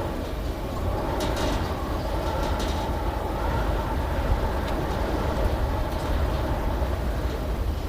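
Steady low rumble of a moving vehicle, with a few short high-pitched squeaks between about one and three seconds in.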